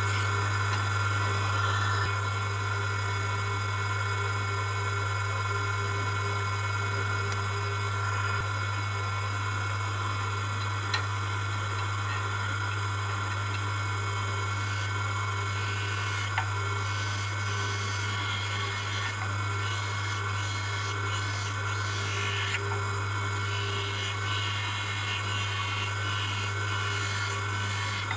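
Hand edger's motor running with a steady hum while a plastic (fiber) bifocal lens is held against its spinning grinding wheel, the lens edge grinding with a rasping sound as it is shaped to fit a metal full frame.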